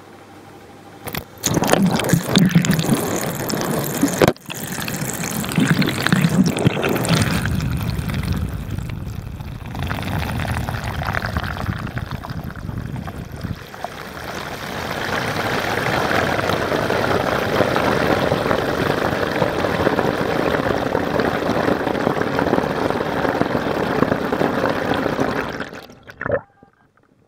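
Water from a tap running and splashing into a filled basin, churning up bubbles, picked up close by a waterproof camera dipped into the water. The rush dips briefly a few seconds in and cuts off suddenly about a second before the end.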